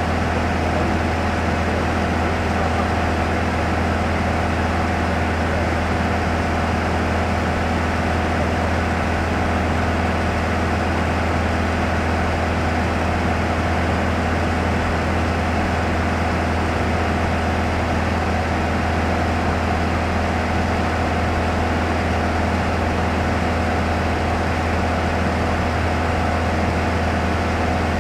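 Light touring aircraft's piston engine and propeller running steadily in flight, heard from inside the cabin: a deep, unchanging drone with a steady hiss above it.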